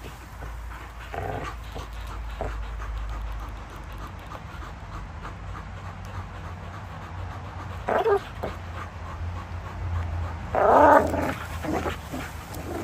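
Two Belgian Malinois growling and panting as they tug on a hanging rope toy, with two louder growls, a short one about eight seconds in and a longer one near eleven seconds.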